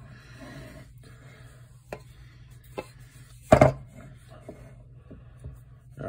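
A wooden board being shifted and turned on a wooden desk: light rubbing, a couple of sharp knocks, and one loud wooden thump about halfway through.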